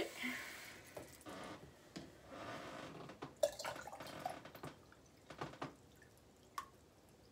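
Water dripping and splashing in a bathroom sink, with irregular clicks and small handling noises that thin out toward the end.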